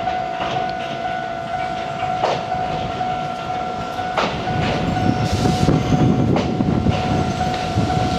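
Konan Railway 7000-series electric train running in to the platform, its wheels clacking over rail joints a few times about two seconds apart, with the rumble growing louder in the second half as it draws near and a brief hiss about five seconds in. A steady high tone sounds throughout.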